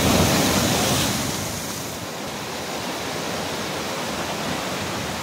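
Sea surf breaking against the boulders of a rock seawall: a wave's crash and wash is loudest in the first second or so, then eases into a steady rush of churning water.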